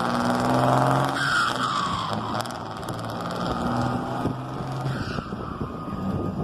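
Mercedes-Benz truck's turbo diesel engine rumbling and being revved, its pitch falling back after the rev about a second in. A comb ('pente') is fitted in the turbo to make it sound louder.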